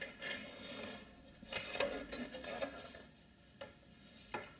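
Faint handling noises of the Power Mac G4's plastic side panel being held and turned: a few light taps and clicks, and soft brushing of fingers over the surface.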